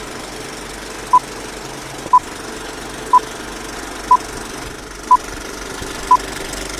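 Old film-leader countdown sound effect: the steady running clatter of a film projector, with a short beep once a second, six beeps in all.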